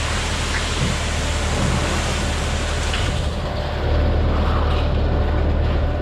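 Diesel engine of a concrete mixer truck running steadily with a low drone, under a broad rushing hiss. The hiss drops away about three seconds in, and the engine drone gets louder about a second later.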